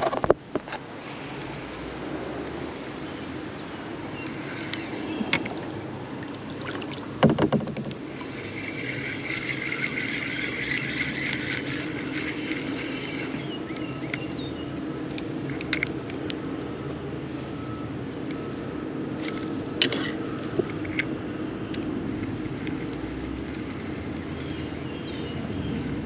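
Spinning reel being cranked for several seconds around the middle, over a steady low rush, with a few sharp knocks of hands and rod against the plastic kayak.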